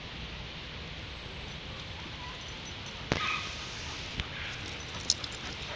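Dogs playing on grass: over a steady outdoor hiss, a dog gives a brief, high cry about three seconds in, just after a sharp knock, with a few lighter clicks later.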